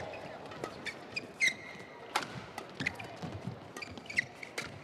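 Badminton doubles rally: a string of sharp racket strikes on the shuttlecock, with brief squeaks of court shoes on the mat.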